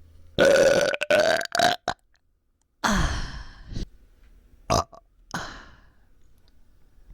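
A person burping loudly, over and over: a long burp about half a second in, a second one near three seconds, then shorter ones. These are burps from a bloated, aching stomach.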